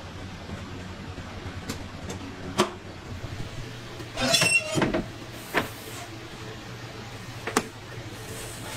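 A stainless steel deck oven's door is pulled open with a scraping squeal, then a metal baking tray clanks as it is slid out, over a steady low hum.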